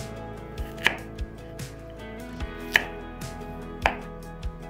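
Chef's knife cutting peeled raw potatoes into chunks on a wooden cutting board: irregular knocks of the blade hitting the board, about eight of them, three louder than the rest, over steady background music.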